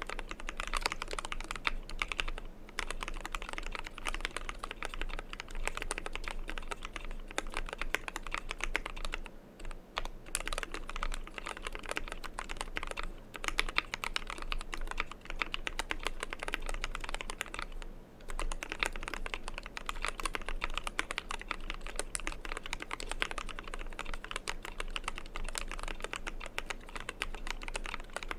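Continuous rapid typing on a custom 60% mechanical keyboard: a KBDfans Tofu aluminium case with a Zeal60 PCB and EVA foam under it, lubed Zeal Tealios V2 linear switches and imsto PBT dye-sub keycaps. A dense stream of keystrokes stops briefly three times, about a tenth, a third and two thirds of the way through.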